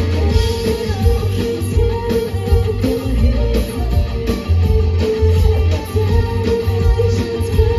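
Live rock band playing, with electric guitar prominent over heavy bass and a steady drum beat.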